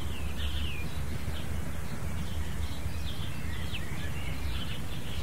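Outdoor background: small birds chirping again and again over a steady low rumble.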